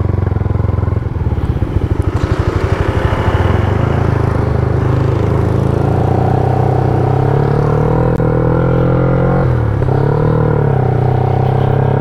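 Yamaha Y15ZR's freshly rebuilt 150 cc single-cylinder four-stroke engine, being run in. It idles with even pulses, then pulls away with its pitch rising slowly, dips briefly about nine and a half seconds in, and rises again before holding steady.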